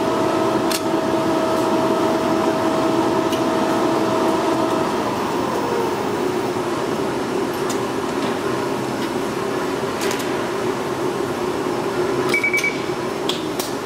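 Automatic jacket-ironing machine running with a steady blower hum. About five seconds in the hum slides down in pitch and settles on a new steady tone. A few sharp clicks come near the end as the pads are moved off the jacket.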